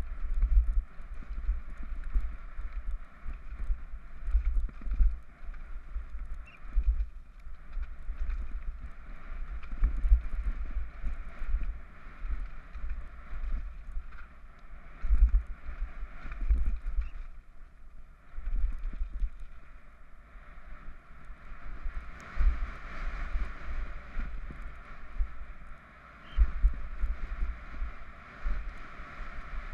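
Downhill mountain bike running fast over a rocky gravel trail, heard through a helmet-mounted GoPro: tyres on loose stones and the bike rattling over rocks, with wind buffeting the microphone in irregular low thumps.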